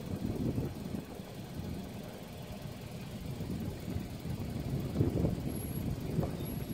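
Wind buffeting the microphone in an irregular low rumble that swells and fades, picking up again about five seconds in.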